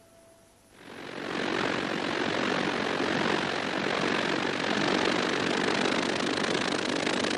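A speeding boat's steady rushing noise of engine and spray, which swells in about a second in and then holds even.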